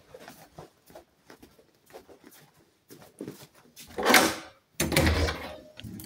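A door being opened: soft scuffs and taps, then a loud scrape about four seconds in and a heavier bump about a second later.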